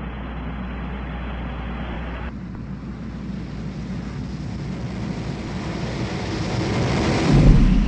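Radio-link hiss cuts off about two seconds in. Beneath it, a broad rumbling whoosh of a spacecraft sound effect builds slowly to a peak, with a low boom near the end, and then begins to fade.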